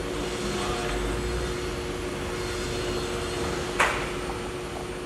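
Steady workshop hum with one constant tone, broken by a single sharp knock a little under four seconds in.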